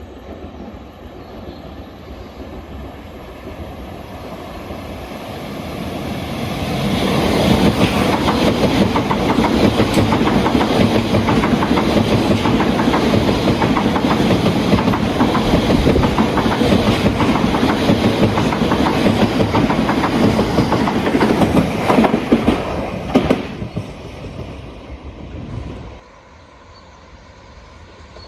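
Electric multiple unit passing on the railway: the rumble builds up as it approaches, runs loud for about fifteen seconds with wheels clattering over the rails, gives a few sharp clicks near the end, then fades and drops away.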